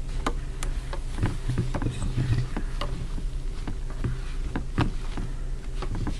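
Scattered light clicks and taps as a plastic screen-protector film and phone are handled, over a steady low hum.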